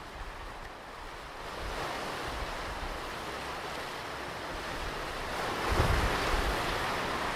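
Ocean surf washing on a beach, with a wave building and breaking about two-thirds of the way in, and wind buffeting the microphone with low rumbles.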